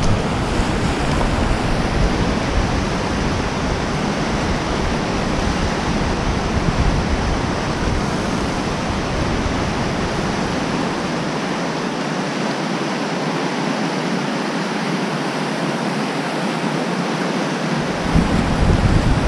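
Steady rush of whitewater rapids on a river, an even roar of water. The deepest part of the sound drops away about eleven seconds in and returns near the end.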